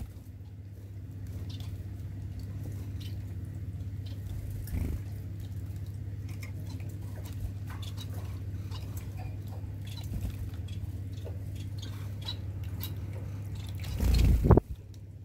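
Electric pet water fountain running: its pump hums steadily under the trickle of water, with scattered light ticks. About 14 s in there is a loud, brief flurry as a Bengalese finch flaps its wings and splashes at the fountain.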